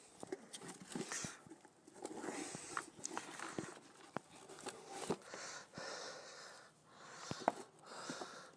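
Soil and saffron crocus bulbs being tipped out of a tub into a sieve: spells of rustling, crumbling noise, with scattered sharp clicks and taps.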